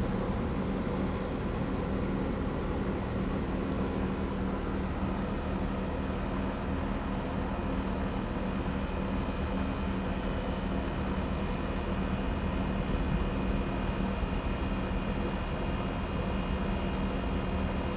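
Outdoor air conditioner condensing unit running steadily after its compressor has kicked on: a low, even compressor hum under the rush of the condenser fan.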